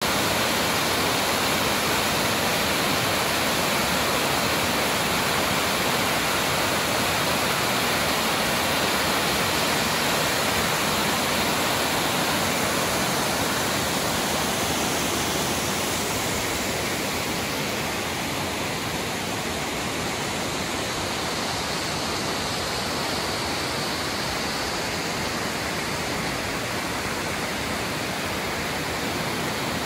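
Mountain waterfall rushing steadily, an unbroken noise of falling water, a little quieter after about sixteen seconds.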